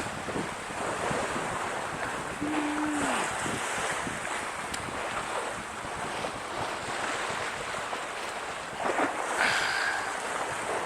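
Wind and sea rushing past a sailing ship under way, with wind buffeting the microphone. A short low tone that falls away comes about two and a half seconds in, and a brief higher squeal near the end.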